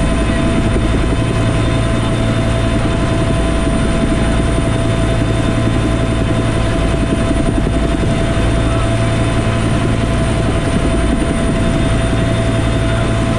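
Bell UH-1 Huey helicopter in cruise flight, heard from inside the cockpit: steady loud rotor and turbine noise, a deep rumble under several steady whining tones.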